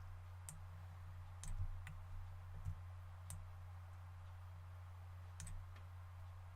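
Scattered, faint computer mouse clicks, about seven at irregular intervals, over a steady low electrical hum.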